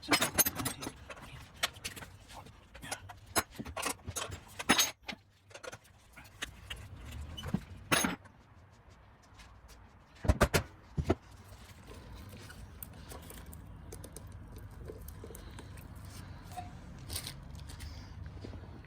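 Metal roller chain of a Mega Moto 212 minibike clinking and rattling as its links are handled and fed onto the sprockets. There are many small clicks through the first half, two louder clanks about ten seconds in, then it goes quieter with only a few faint ticks.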